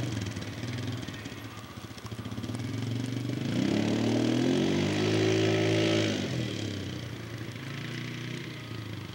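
ATV (four-wheeler) engine running, revving up about three and a half seconds in, holding the higher pitch for a couple of seconds, then easing back down.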